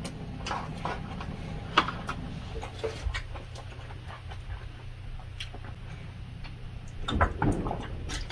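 Close-up eating sounds: chewing a mouthful of rice with scattered clicks of a metal spoon and fork against plastic takeaway trays, the sharpest about two seconds in. Near the end, a few gulps of water drunk from a plastic bottle, over a low steady hum.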